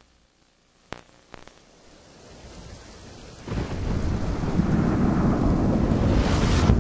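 Rushing, rumbling noise with a few sharp cracks about a second in. It rises slowly from near silence, jumps much louder about halfway through and keeps building, with a rising rush near the end.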